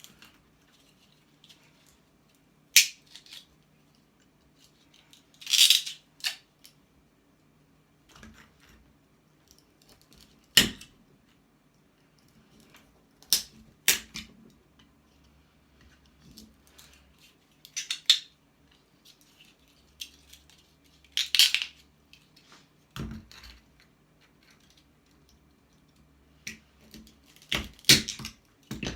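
Hand cutters snipping and cracking scrap plastic: about a dozen sharp snaps at irregular intervals, a few of them drawn out into a short crunch, with a faint low hum under them.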